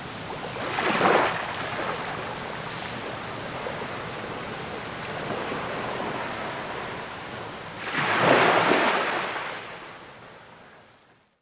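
Ocean waves breaking and washing up in foam, with a steady hiss of surf between. Two waves crash, about a second in and again around eight seconds in, and the sound fades out near the end.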